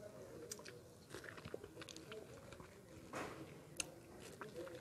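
Close-up mouth sounds of eating a peeled ripe mango: faint wet chewing and small lip smacks, with one louder, short wet sound about three seconds in.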